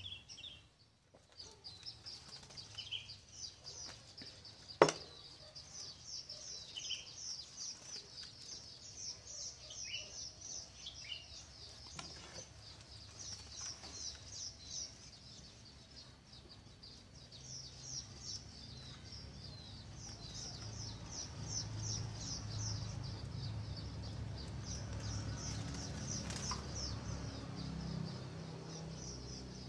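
Small birds chirping in quick repeated trains, with a few short falling calls in the first half. There is one sharp click about five seconds in, and a low rumble builds in the second half.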